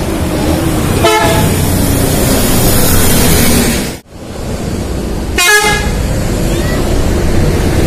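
Bus basuri ('telolet') musical horn sounding two short blasts, about a second in and again past the five-second mark, over steady vehicle and street noise. The sound drops out abruptly for a moment near the middle.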